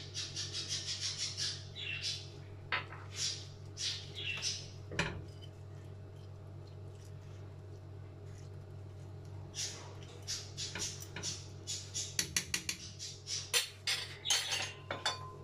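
A metal spoon scraping and clinking against a metal cooking pot while spices are stirred into the raw ingredients. The strokes come in two spells, at the start and again in the last few seconds, over a steady low hum.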